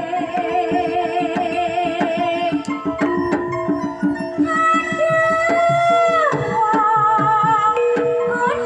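A Javanese sinden singing a gending into a microphone over gamelan accompaniment, holding a long wavering note with vibrato and sliding down in a long falling glide about six seconds in. Sustained metallophone and gong tones and steady drum strokes run beneath the voice.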